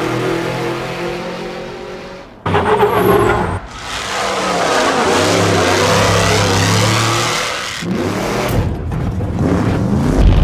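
Small two-stroke petrol engine of a 1/5-scale RC buggy revving and running, its pitch sliding down and up. The sound changes abruptly about two and a half seconds in and again near eight seconds.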